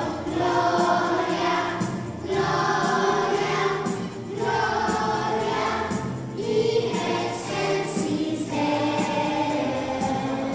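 Young children singing a Christmas carol together into a microphone, in phrases of about two seconds, over a steady instrumental backing.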